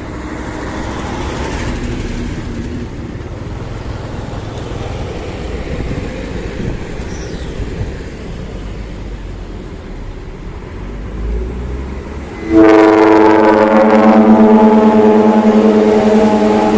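Hino dump truck's diesel engine running with a low rumble, then, about twelve and a half seconds in, its trumpet air horn starts a loud, steady blast that holds to the end.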